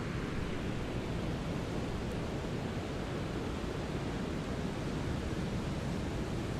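Steady brown noise: an even, unchanging hiss weighted toward the low end, like a deep rumble with softer highs.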